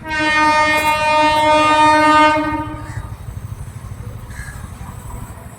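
WAG-7 electric locomotive's horn sounding one long, steady blast of about two and a half seconds. The horn fades out and leaves the low rumble of the train running.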